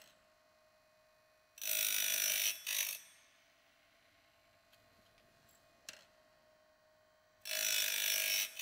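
Woodland Mills RS30 PRO bandsaw blade sharpener's CBN grinding disc grinding a sawmill blade tooth, twice, each grind lasting just over a second and about six seconds apart, with a short click in between. It is taking metal off the back of the tooth and the bottom of the gullet, with the sound consistent through each grind.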